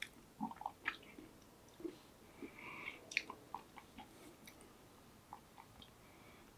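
Faint chewing of a mouthful of burger: soft, wet mouth smacks and clicks, thinning out after about four seconds.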